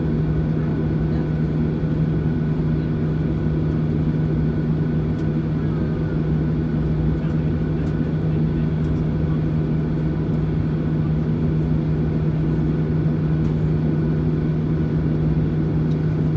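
Cabin noise of a Boeing 737-900ER on the ground, its CFM56-7B engines running at taxi power. It is a steady hum with a constant low drone.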